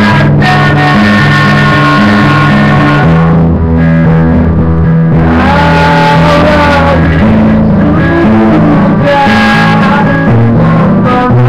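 Electric guitar played live: sustained chords that change every second or so over moving low bass notes.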